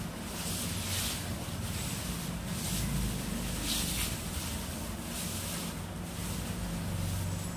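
Straw hand broom sweeping onion skins across a concrete floor in repeated short swishes, roughly one stroke a second, over a low steady hum.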